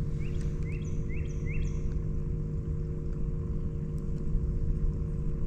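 A steady low mechanical hum with a few steady tones in it, and a bird giving four quick rising chirps in the first couple of seconds.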